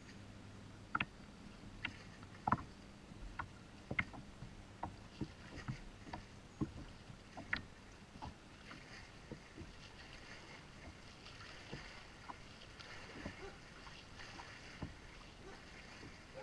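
Scattered knocks and clicks of handling in a kayak, irregular and busiest in the first half.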